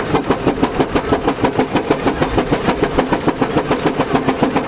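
Fowler 14NHP single-cylinder steam ploughing engine working hard under load, its exhaust giving a steady, sharp bark of about five beats a second, opened up to clear its boiler tubes.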